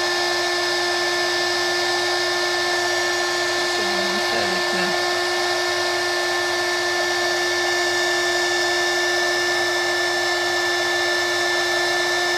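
Embossing heat gun running steadily, a constant blowing noise with a fixed whine, as it melts gold embossing powder on card.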